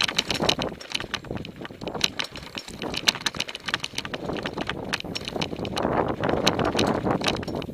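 Mountain bike descending a rough, rutted dirt-and-grass track: the tyres rumble over the ground amid a rapid, irregular clatter of knocks and rattles from the bike.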